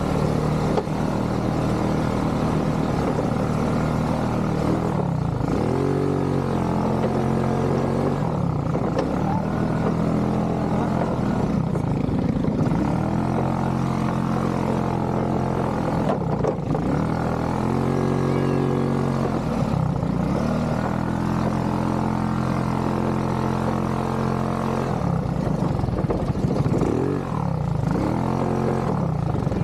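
ATV engine running under a varying throttle. Its pitch dips and climbs back several times as the rider eases off and opens it up again.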